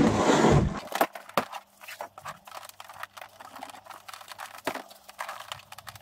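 A VW T4's plastic door card being turned over and handled: a loud scrape in the first second, then scattered light plastic clicks and knocks as the door handle's clips are prised free from the back with a screwdriver.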